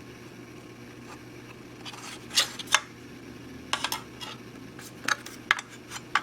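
Small sharp clicks and taps of a solid-state disk being handled and fitted into a notebook's drive bay, starting about two seconds in, over a steady low hum.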